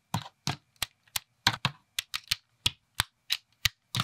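Plastic building bricks snapping and clicking together as subassemblies are pressed into place: a quick, irregular run of about fifteen sharp clicks.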